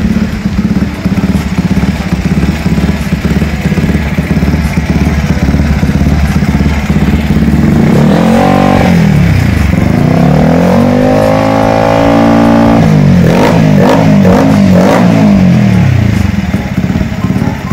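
Yamaha R15 V3's single-cylinder four-stroke engine running just after a rebuild with new crankshaft and camshaft bearings: it idles steadily, is revved up and back down about eight seconds in, held at higher revs for a few seconds, blipped a few times, then settles back to idle.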